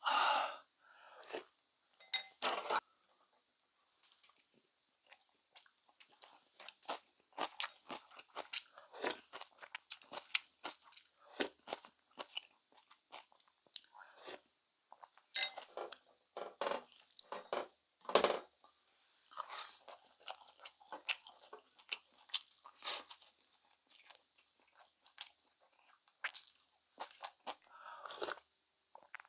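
A person eating close to the microphone: irregular chewing and crunching of food.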